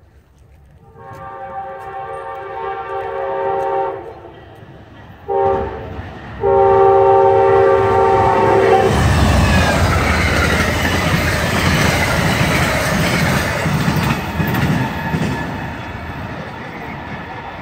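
Train horn sounding a chord of several notes: a long blast that grows louder as the train approaches, a short blast, then another long blast. The train then passes close by with a loud rumble and the clickety-clack of wheels on the rails.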